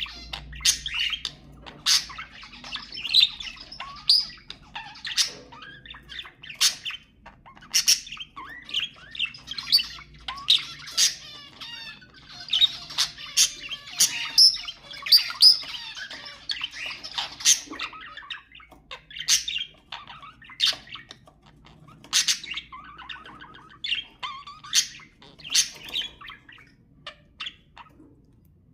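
Budgerigars chattering and warbling, broken by frequent sharp squawks and chirps; the calls thin out near the end.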